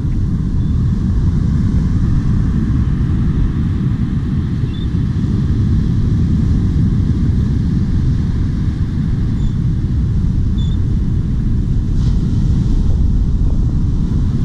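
Wind buffeting the microphone in a dense, steady low rumble, over the wash of surf breaking on the beach.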